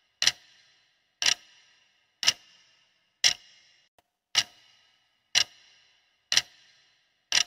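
Countdown clock tick sound effect: one sharp tick a second, eight in all, each ringing briefly, counting down the seconds of a quiz's answer timer.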